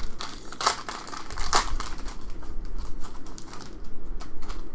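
Trading-card pack wrapper crinkling, with two louder crackles in the first two seconds, then lighter clicks and ticks as the cards are handled.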